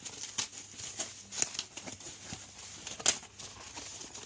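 Packaging being handled during unboxing: crinkling and rustling with several sharp clicks and taps, the loudest about three seconds in.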